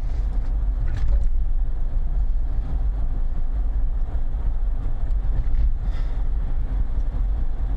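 Steady low rumble of a truck's engine and road noise heard inside the cab while driving.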